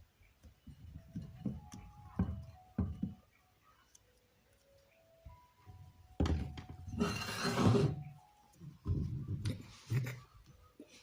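Hands working a stiff egg-noodle dough on a surface: a series of soft, dull thumps, with a louder stretch of rubbing and rustling about six to eight seconds in. Quiet background music plays underneath.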